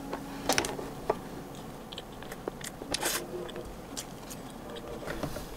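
Close-up eating sounds: a metal fork scooping soft sponge cake with scattered sharp clicks, then biting and chewing a mouthful.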